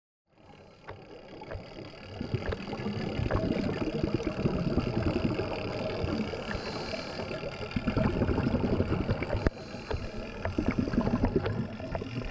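Muffled underwater noise on a night dive, heard through a camera housing. Divers' exhaled bubbles rumble and swell every few seconds, with scattered sharp clicks. It fades in just after the start.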